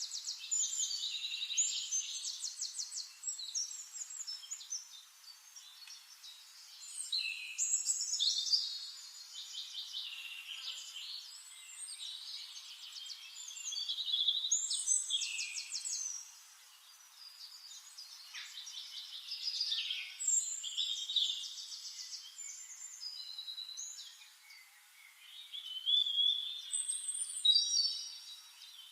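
Songbirds singing in a forest chorus: several overlapping high trills and warbling phrases, swelling in a new phrase every few seconds. The sound is thin, with no low sounds under the birdsong.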